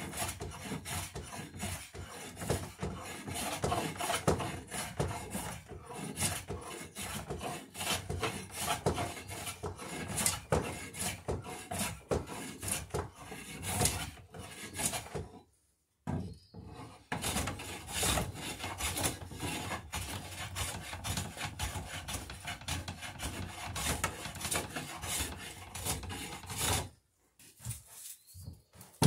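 Hand plane cutting shavings along the edge of a wooden piece in quick, repeated strokes. The strokes stop briefly about halfway through and again near the end.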